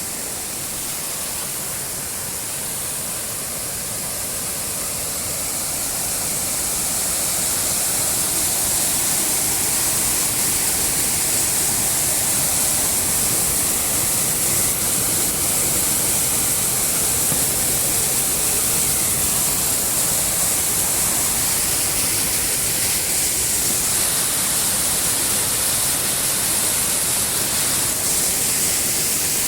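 Steady rush of water pouring over a dam, running high after heavy rains. It grows a little louder over the first several seconds, then holds steady.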